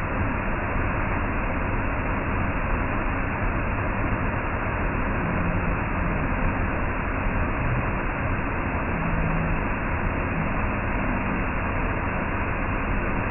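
A waterfall's steady rushing water: an even, unbroken noise with no change in level.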